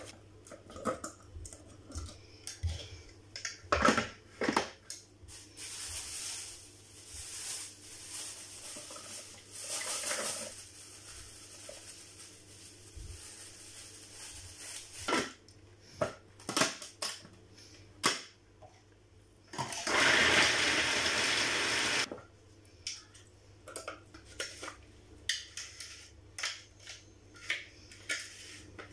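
Electric food processor chopping walnuts, running for about two seconds near the end, with scattered knocks and clicks of the bowl and lid being handled before and after.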